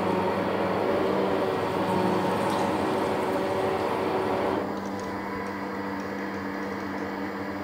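Harrison 140 lathe running in low range at 120 rpm while a Morse taper 3 shell cutter, fed from the tailstock, cuts into the spinning workpiece: a steady machine hum under a rough cutting noise. About four and a half seconds in the cutting noise eases, leaving mostly the lathe's hum.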